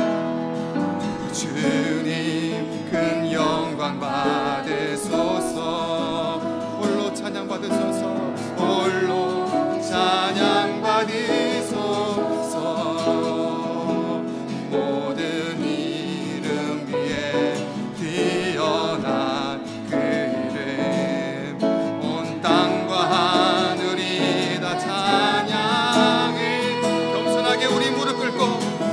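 A man singing a Korean worship song to his own acoustic guitar accompaniment, the guitar strummed steadily under the melody.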